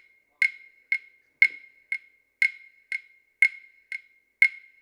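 Steady, sharp clicking: two clicks a second, alternating loud and soft, each with the same high pitch.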